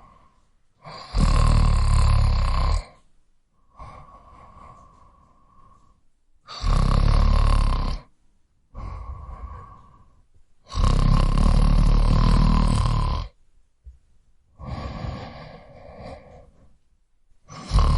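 A person snoring heavily: a loud snore on each in-breath, every four to five seconds, with a softer out-breath between.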